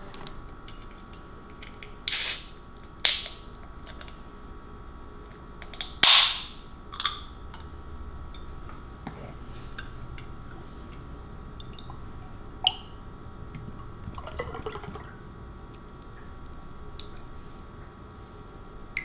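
A can of mango drink being opened and poured into a glass: several short, loud hissing bursts in the first half, a sharp click about two-thirds through, then softer liquid sounds.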